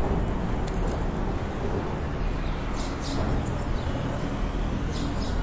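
Steady open-air market background noise with a low rumble and faint distant voices.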